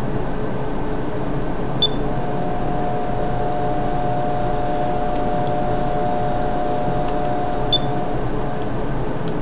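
Two short, high electronic beeps about six seconds apart from a Nikon Coolpix L27 compact camera as its buttons are pressed, over a steady hum.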